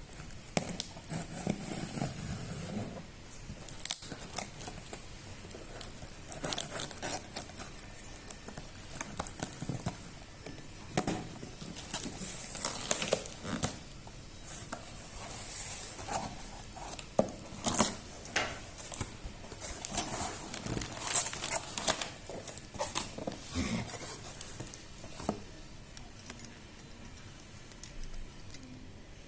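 Irregular rustling and light clicks of things being handled, with scattered bursts of crinkly noise and no steady rhythm.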